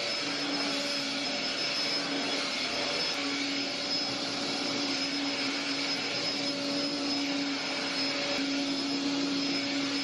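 Vacuum cleaner running steadily: a constant motor hum with a high whine over it.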